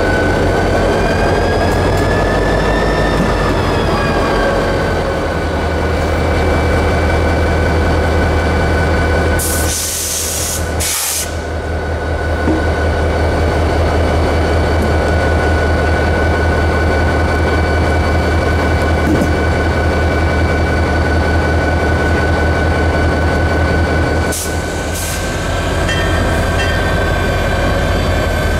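Six-axle diesel locomotive running, a steady low drone with a high steady whine over it. Short hissing bursts come about ten seconds in and again near twenty-five seconds.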